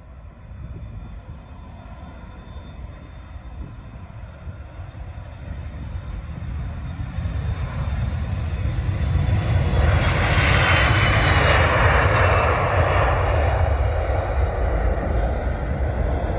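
Twin-engine Embraer E-Jet regional jet taking off: its turbofan engines at takeoff thrust grow louder as it rolls and lifts off, loudest about two thirds of the way in, then ease slightly as it climbs away.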